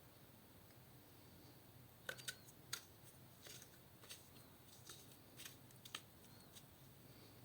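Slime being handled and squished, giving faint, irregular small sticky clicks and pops from about two seconds in, over a low steady hum.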